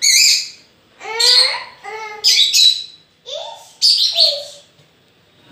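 A young child saying English phonics letter sounds one by one, reading them off an alphabet chart: a series of short, high-pitched, separate sounds with brief pauses between them.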